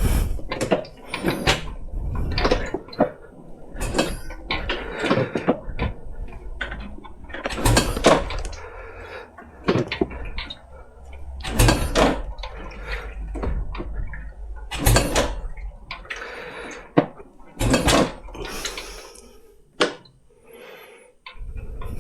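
Royal Enfield 500 single being kick-started by foot: heavy thumps and clanks every few seconds, with brief low rumbles between them and no steady running engine.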